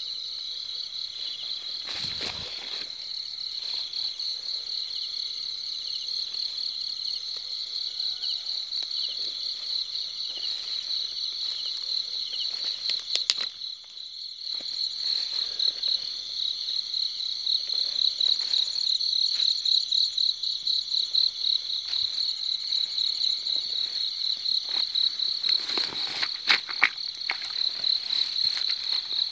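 A dense chorus of night insects chirping in a steady, fast-pulsing high trill. Grass rustles against the body or microphone a few times: about two seconds in, near the middle, and near the end.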